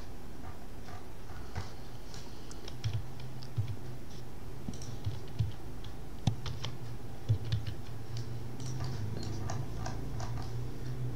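Irregular clicks and ticks of a computer mouse and keyboard being worked, including mouse-wheel scrolling and key presses, over a steady low hum.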